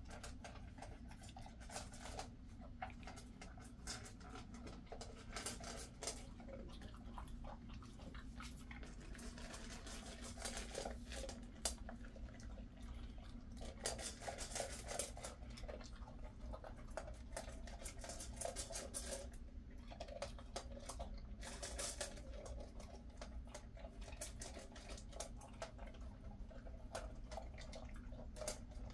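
Jindo dog eating from a stainless steel bowl: irregular crunching and clicking as it chews its food and its teeth and tongue tap the metal.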